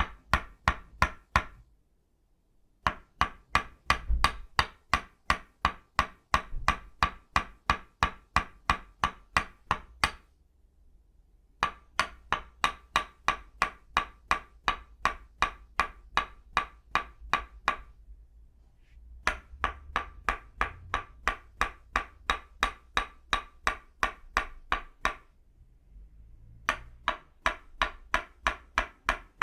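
Tok sen massage: an itaúba-wood mallet (kon) tapping a wooden stake (lim) in a steady rhythm of about three strikes a second, each with a short woody ring. The tapping runs in stretches of several seconds broken by four short pauses.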